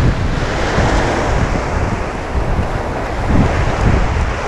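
Wind buffeting the microphone over the steady rush of surf on an ocean beach.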